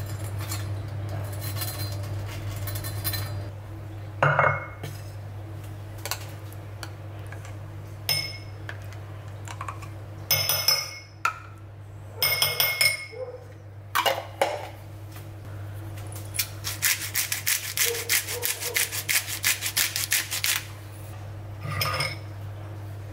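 A kitchen knife cuts through crisp, crumb-coated fried jackfruit with a faint crunch. Then a metal spoon scrapes and clinks against a glass jar and a ceramic bowl. Near the end, a fast run of clinks comes from the spoon stirring in the bowl, over a steady low hum.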